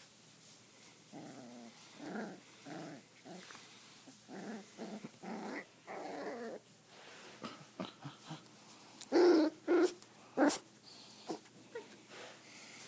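Five-week-old sheepadoodle puppy growling in play: a string of short, low growls, then a few louder sudden sounds about nine to ten and a half seconds in.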